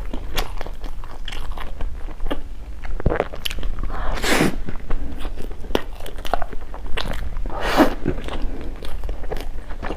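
A person biting and chewing food, with many small mouth clicks and two louder crunchy bites about four and eight seconds in.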